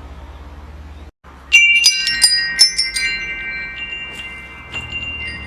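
Metal wind chimes struck in a quick flurry, several clear high tones ringing together and slowly fading, after a low steady rumble that cuts out about a second in.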